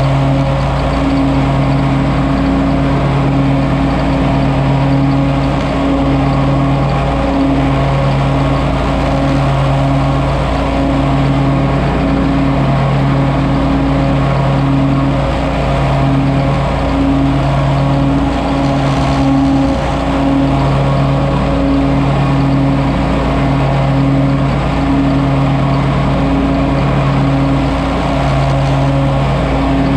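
John Deere 648R stand-on mower running steadily with its blades engaged, mulching wet leaves with X-Blades on the 48-inch deck. It makes a loud, even drone whose low hum wavers every second or two.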